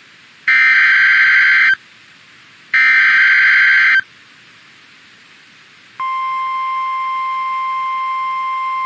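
Two buzzy digital data bursts of an Emergency Alert System SAME header, each just over a second long and about a second apart. About two seconds later the steady 1050 Hz NOAA Weather Radio attention tone starts.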